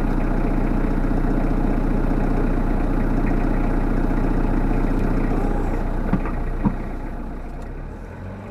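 Talbot Express motorhome's engine and road noise heard from inside the cab while driving, steady, then easing off over the last couple of seconds as the van slows. Two short sharp clicks about six seconds in.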